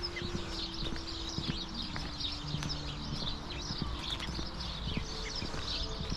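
Footsteps of a person walking on a path, a step roughly every half second, with a constant high crackle over them.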